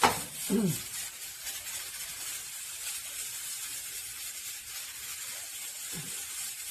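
Stovetop stainless steel pressure cooker venting a steady hiss of steam past its jiggling pressure regulator weight while it cooks under pressure. A sharp click right at the start and two short falling sounds, one about half a second in and one near the end, stand out over the hiss.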